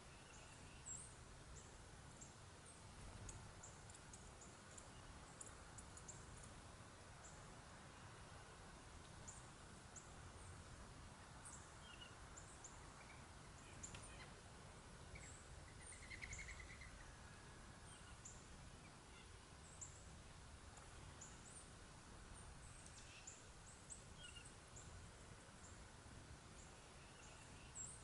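Faint, short, high chirps of small songbirds scattered all through, over a low, steady outdoor rumble, with one brief warbled call about halfway through.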